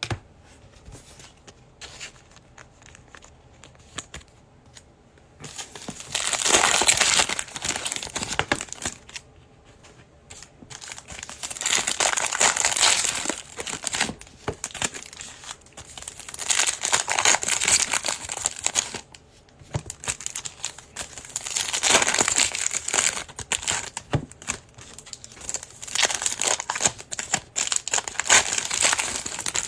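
Foil wrappers of 2021 Prizm Football trading card packs being torn open and crumpled by hand, in five bursts of crinkling, with small clicks and handling noise before the first.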